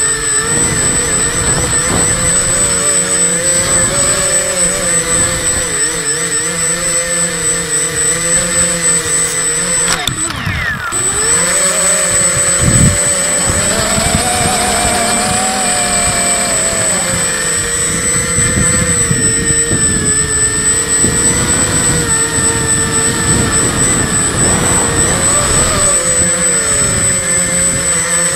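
3D-printed quadcopter's electric motors and propellers whining, the pitch rising and falling as the throttle changes, with a brief knock about halfway through.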